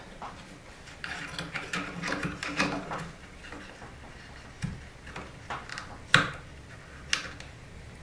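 Yellow plastic twist-on wire nuts being screwed onto the cloth-insulated ends of old knob-and-tube wires to cap them off: a run of small rasping clicks for about two seconds, then a few sharper single clicks.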